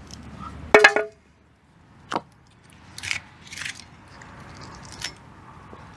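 Hands working the foil off the neck of a sparkling wine bottle: a sharp clink with a brief ring about a second in, then several short crackles and clicks.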